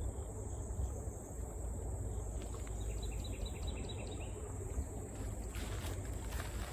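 Outdoor ambience with a steady low rumble and insects calling in a steady high drone, with a quick run of about seven short high chirps around three seconds in.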